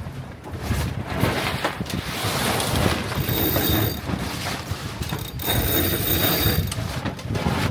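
Wind buffeting the microphone and water rushing past a small sailboat under way, with two high-pitched squeals, one about three seconds in and a longer one about five seconds in.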